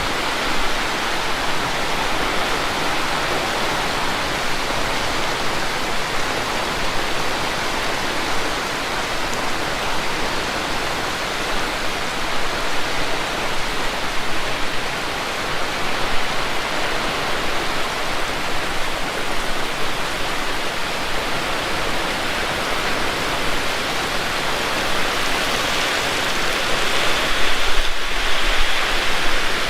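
Heavy rain pouring down in a steady, dense hiss, growing a little louder near the end.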